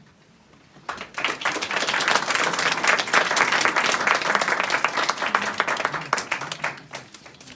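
Audience applauding the end of a piano piece, starting about a second in and dying away near the end.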